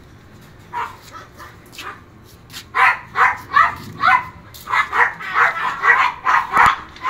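A dog barking: one bark about a second in, then a quick run of a dozen or so barks, two or three a second, from about three seconds in.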